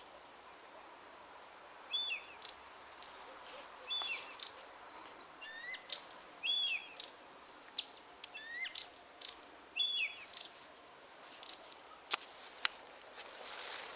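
Songbird singing: a run of short, sharp chirps and whistles, a couple a second, starting about two seconds in and thinning out after about ten seconds. A hiss swells near the end.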